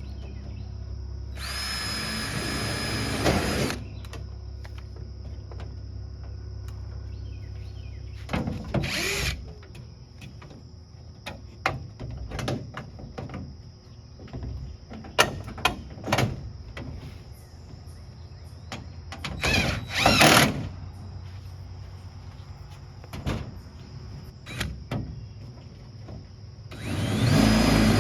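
Power drill running in four short bursts of a second or two each, with scattered clicks and knocks between them over a steady low hum.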